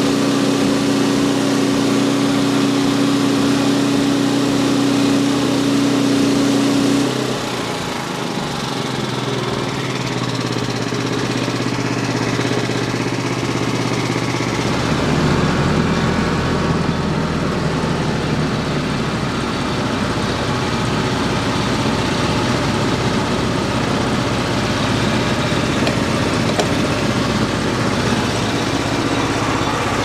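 Small gasoline engine of a portable bandsaw mill running steadily, its sound dropping and changing about seven seconds in. About halfway through, a deeper compact tractor engine comes in, running alongside it.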